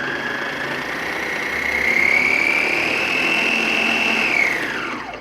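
Battery-powered electric drive motor of a remote-controlled model fishing boat running forward under throttle: a whine that rises in pitch over the first couple of seconds, holds, then falls and stops near the end as the throttle is released.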